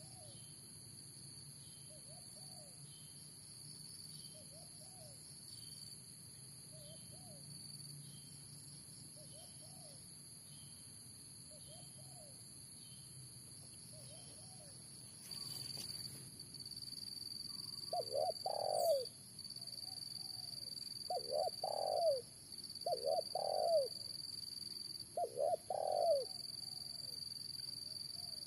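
Decoy spotted dove cooing in four loud, crisp phrases during the second half, with fainter, evenly spaced coos before them. A steady high-pitched insect drone runs underneath and turns pulsing partway through.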